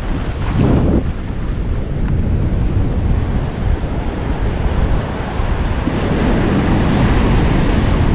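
Ocean surf breaking and washing up the beach, with heavy wind buffeting the microphone. A rush of water comes about half a second in, and another wave swells up over the last couple of seconds.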